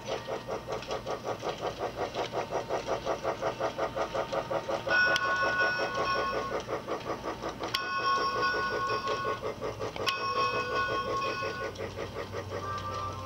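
Toy Story battery-powered toy steam train running on its track, with a fast, even chugging of about five beats a second. Three times, a click is followed by a held multi-tone electronic train whistle lasting about a second and a half.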